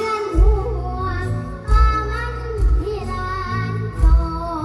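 A girl singing a mor lam song with a wavering melody into a microphone, backed by an amplified live band with heavy bass beats.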